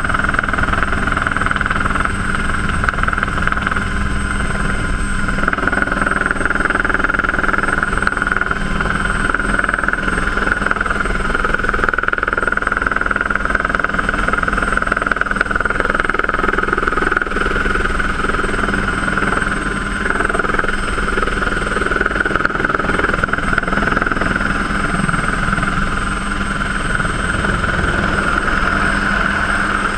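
Helicycle kit helicopter's turbine engine and rotor heard from inside the cockpit: a steady high whine over a low rumble as the machine descends to land.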